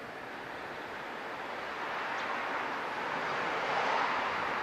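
EF66 electric locomotive hauling a container freight train, its running noise of wheels on rail growing steadily louder as it approaches.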